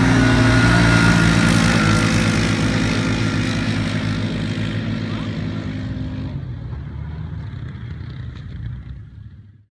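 Two stock ATVs, a Polaris Sportsman 570 with its single-cylinder engine and a Can-Am Renegade 570 with its V-twin, accelerating hard side by side from a drag-race launch. The engines run at high revs, then fade as the quads pull away. The sound cuts off abruptly near the end.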